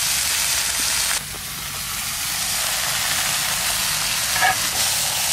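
Shredded pumpkin flowers sizzling as they fry in hot oil in a pan: a steady hiss that drops off suddenly about a second in, then builds back up.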